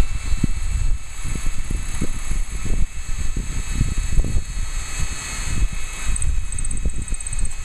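Wind buffeting the microphone: an irregular, gusty low rumble with rapid thumps.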